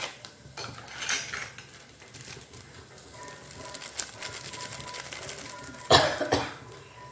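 Spices frying in hot oil in a non-stick pan, with light crackling clicks, then a brief loud clatter of kitchen utensils about six seconds in, twice in quick succession.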